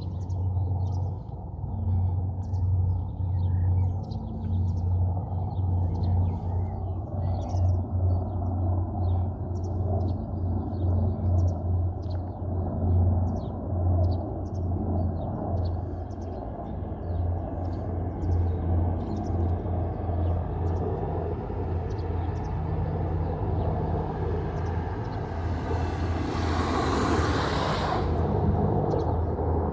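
Military helicopter flying overhead, its rotor heard as a steady low pulsing drone, with birds chirping through the first two-thirds. A brief rushing hiss swells for about two seconds near the end.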